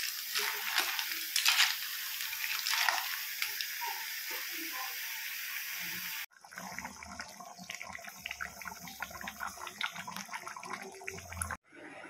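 Snails in their shells sizzling in a hot cast-iron pan while a metal ladle stirs them, a steady hiss broken by scraping and the clatter of shells. About six seconds in the sound cuts to a quieter stretch of small clicks and pops from the pan.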